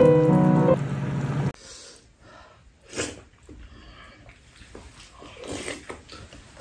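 Background music that stops abruptly about a second and a half in, followed by quiet eating sounds at a table: faint spoon-and-bowl clicks and one short, sharp, noisy breath about three seconds in.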